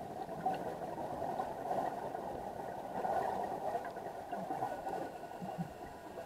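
Muffled underwater noise picked up through a waterproof camera housing during a scuba dive: a steady hiss with faint thin tones, swelling slightly about three seconds in.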